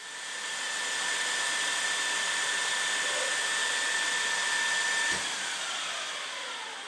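A high-speed spindle motor running with a steady high whine over rushing air, then switched off about five seconds in with a soft knock, the whine falling in pitch as it spins down.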